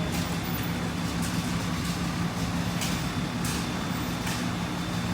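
Forklift running with a steady low engine hum as it lifts the pallet down from the top shelf.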